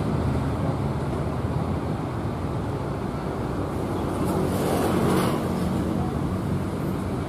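KRL Commuter Line electric train approaching on the tracks, a steady low rumble mixed with road traffic noise, swelling briefly about five seconds in.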